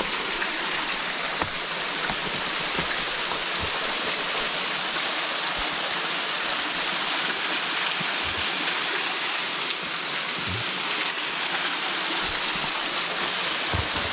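Small waterfall cascading down rock ledges into a pool: a steady, even rushing hiss of falling water, with a few soft low bumps scattered through it.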